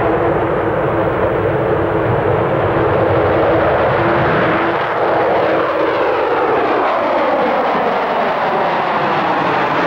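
Avro Vulcan's four Rolls-Royce Olympus jet engines, loud and steady, as the bomber climbs steeply after a display takeoff. A steady whine holds for the first five seconds or so, then the engine note falls in pitch as the aircraft passes overhead.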